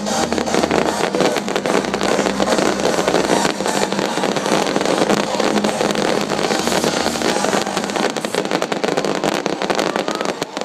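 Fireworks finale barrage: a continuous dense crackle of many shells and crackling stars bursting at once, with low booms underneath now and then.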